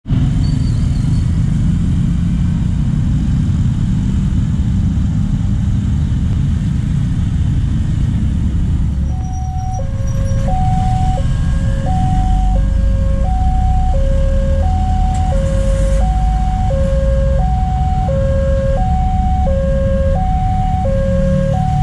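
Street traffic, mostly motorcycles, as a steady low rumble. About nine seconds in, a railway level-crossing warning alarm starts: an electronic two-tone sound alternating a high and a low note, each about two-thirds of a second. It signals an approaching train as the barrier comes down.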